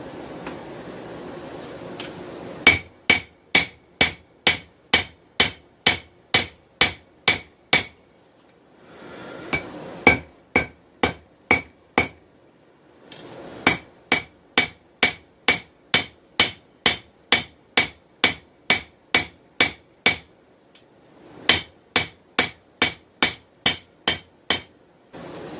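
Hand hammer striking hot 416 stainless steel on an anvil, about two to three ringing blows a second, in four runs broken by short pauses. This is hand forging of a small knife blade: shaping and drawing out the steel.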